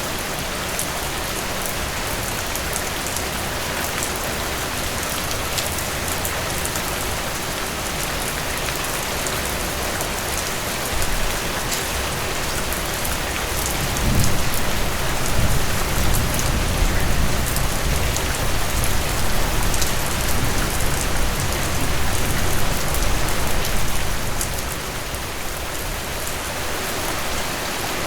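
Steady rain falling, an even hiss of drops. About halfway through, a low rumble swells and holds for some ten seconds, then fades back under the rain.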